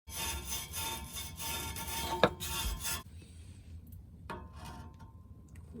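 Rapid rubbing and scraping strokes for about three seconds, with one sharp click a little past two seconds in, then a few faint clicks.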